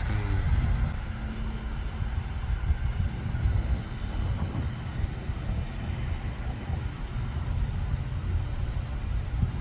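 Steady low vehicle rumble with no distinct event standing out.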